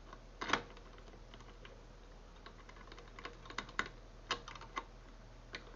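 A bunch of keys being picked up and handled: a faint, irregular scatter of small clicks and clinks.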